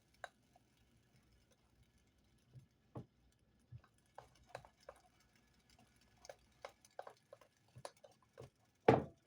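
A spoon or whisk knocking and clicking against a mixing bowl while pancake batter is stirred, in irregular taps, with one louder knock near the end.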